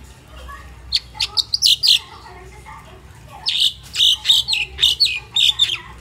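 Crested myna chirping: a quick run of short, sharp, high notes about a second in, then a longer run of them from about three and a half seconds until near the end.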